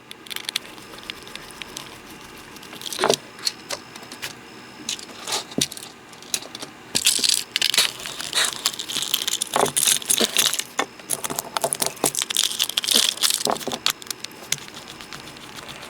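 Batteries being fitted into plastic toy train engines: irregular clicks, rattles and scraping as the casings and battery compartments are handled, busiest in the second half.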